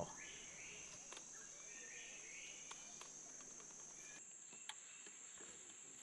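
Faint forest ambience: a steady, high-pitched insect drone, with a few faint chirps in the first half.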